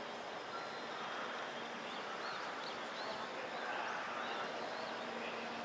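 Birds chirping, a string of short high calls about two to four and a half seconds in, over a steady low hum.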